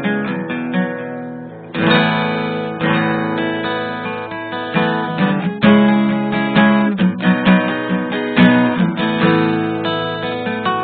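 Background music: acoustic guitar strumming chords, with a fresh loud strum about two seconds in.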